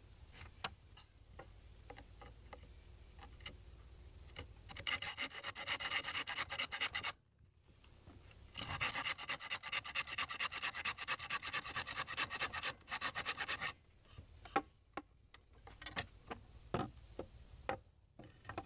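Hand saw cutting through a split bamboo culm held in a bench vise: two runs of quick, even strokes, the second longer, with a short pause between. Scattered knocks and clicks come before and after the sawing.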